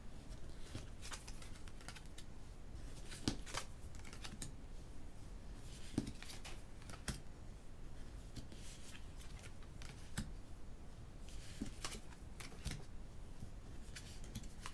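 Tarot cards being slid off the tops of two decks and set down by hand, giving irregular soft card clicks and brief sliding scrapes. The sharpest clicks come a few seconds in and again around the middle.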